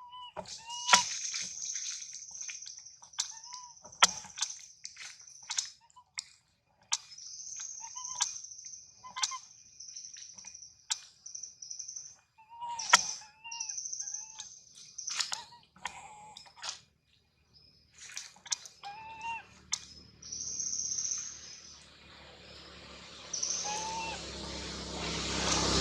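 A baby monkey's short, repeated rising-and-falling calls, every second or two, among sharp clicks and a high hiss. A low rumble builds near the end.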